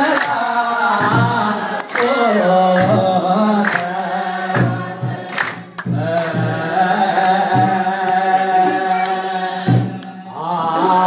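Ethiopian Orthodox congregation singing a hymn in unison, with a low beat about once a second and hand clapping. The singing drops away briefly near the end, then comes back.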